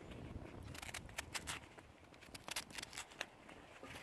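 Irregular crackles and pops from sweet potato cubes cooking with a little water in a cast iron pan on a twig-burning rocket stove, over a low rumble.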